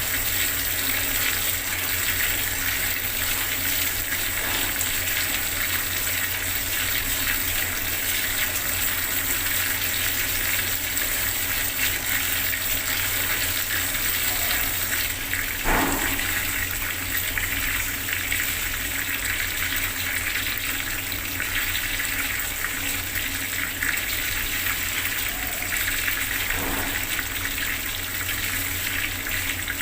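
Bathroom water tap running steadily, its stream splashing into water, with one brief louder splash about 16 seconds in.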